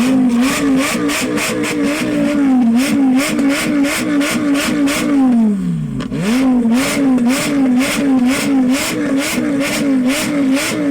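Lamborghini supercar engine revved hard and held at high revs, its pitch bouncing about three times a second with a sharp crackle at each dip. The revs drop away about halfway through, then climb and bounce again before falling off at the end.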